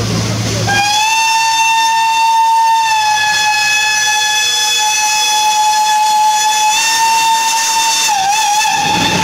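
Steam whistle of the Pt47-65 steam locomotive giving one long, steady blast as the train departs. The blast starts about a second in and wavers briefly near the end. A low rumble comes just before it.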